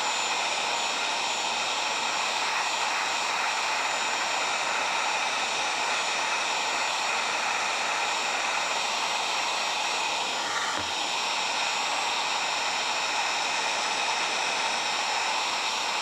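Electric heat gun running on high heat: a steady rush of blown air with a motor-fan whine.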